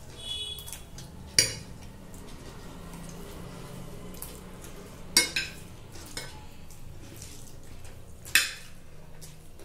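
Metal spoons and forks clinking and scraping on glass plates of chow mein. Three sharp clinks stand out: one about a second and a half in, a double one about five seconds in, and one about eight seconds in, each ringing briefly.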